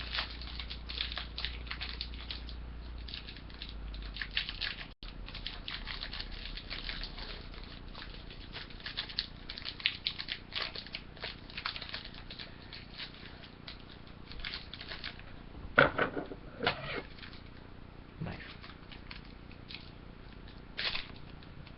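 Foil Yu-Gi-Oh booster pack wrapper crinkling and tearing as it is opened by hand: a steady run of small crackles and rustles, with a few louder crinkles about three-quarters of the way through.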